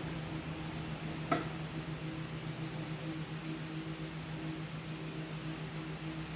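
One sharp click about a second in, an egg knocking against the glass bowl as it is set into the water, over a steady low hum.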